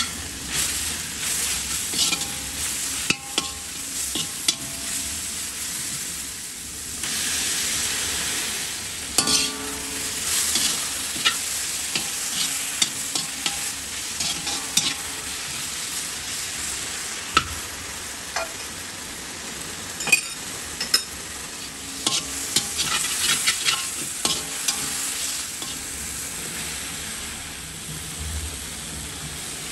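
Sorrel leaves, chillies and spices sizzling in oil in an iron kadai while a metal spatula stirs them, giving a steady sizzle broken by frequent irregular scrapes and clinks of metal on the pan.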